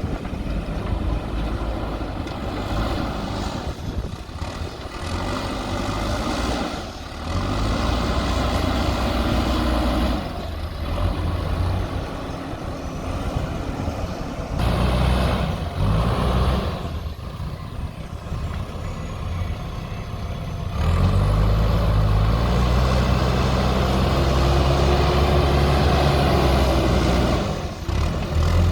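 A JCB backhoe loader's diesel engine working, its revs rising and falling under load. The sound changes abruptly several times and is loudest and steadiest in the last third.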